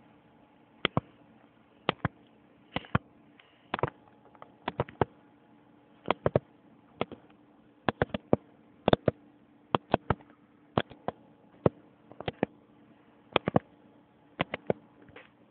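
Irregular sharp clicks and taps, often coming in pairs or small clusters, over a faint steady hum.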